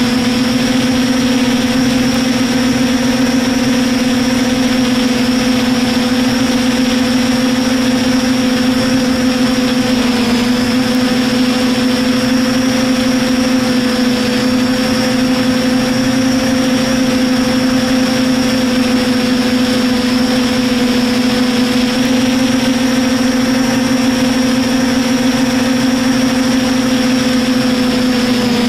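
DJI F450 quadcopter's brushless motors and propellers whining steadily in forward flight, heard up close from a camera mounted on the airframe. The pitch holds nearly constant, dipping slightly about ten and fourteen seconds in.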